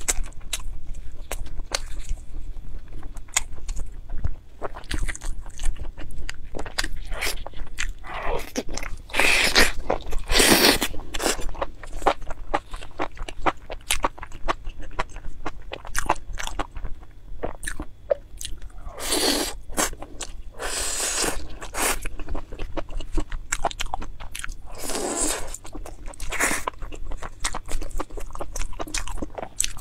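Close-miked chewing and biting of sauced skewered food, with many wet, irregular mouth clicks and a few louder, longer stretches around ten, twenty and twenty-five seconds in.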